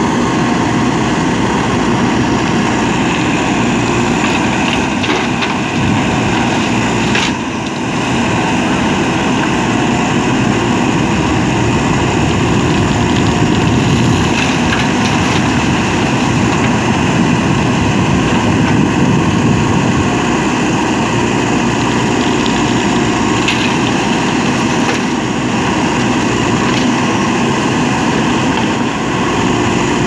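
JCB 3DX backhoe loader's diesel engine running steadily while the backhoe digs soil and swings to dump it into a tipper truck, with a few brief knocks from the bucket and arm.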